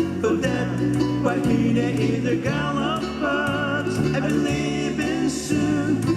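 Hula music: a song with a singing voice over instrumental accompaniment and a steady bass line.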